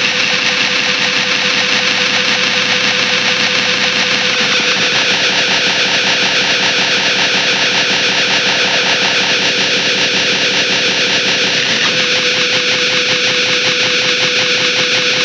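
Drone metal: a loud, dense wall of heavily distorted guitar drone with a fast pulse running through it. The chord shifts about four and a half seconds in and again near the end.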